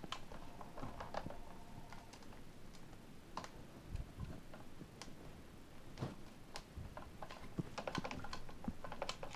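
Scattered light clicks and knocks of a stuck scope being wiggled and worked loose from its mount on a Snow Wolf M24 airsoft rifle. The clicks come quicker toward the end.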